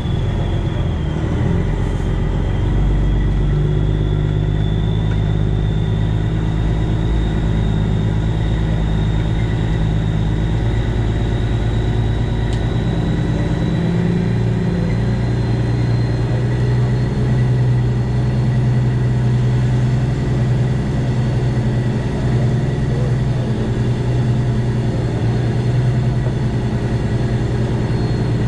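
Semi truck's Detroit Diesel 12.7-litre six-cylinder engine running steadily, heard from inside the cab, its pitch shifting slightly a couple of times, with a faint high whine above it.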